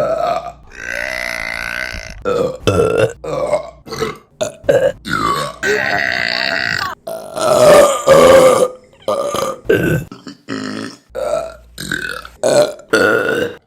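A quick series of women's burps, mostly short, with a few long, drawn-out ones among them.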